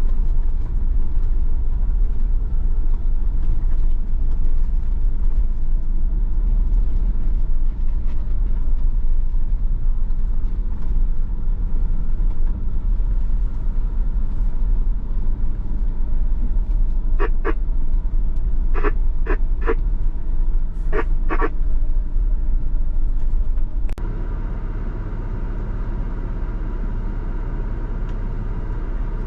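Old Ford Bronco's engine and drivetrain running with a steady low rumble while crawling along a dirt trail. Eight short high chirps come in three quick groups in the middle, and then a click and a sudden drop to a quieter rumble.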